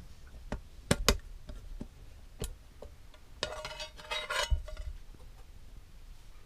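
Aluminium mess kit being opened: two sharp metal clanks about a second in, then a clattering scrape of metal on metal with a brief ringing as the lid is lifted off and set down beside the pan, a little after three seconds.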